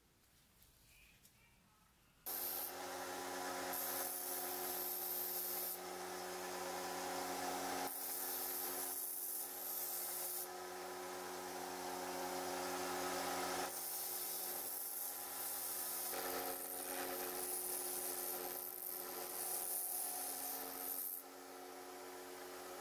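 Scheppach narrow-belt sander running with a steady hum, coming in sharply about two seconds in. A small metal piece is ground against the belt, the grinding swelling and easing with each pass, and it drops off near the end.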